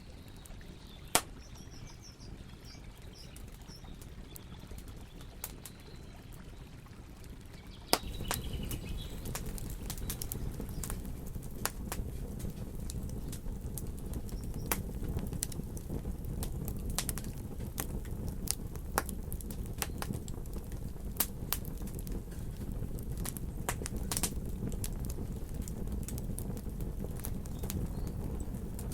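Campfire crackling, with sharp pops scattered throughout and faint birdsong in the first few seconds. About eight seconds in, the fire sound abruptly gets louder, with a steady low rush under denser crackles.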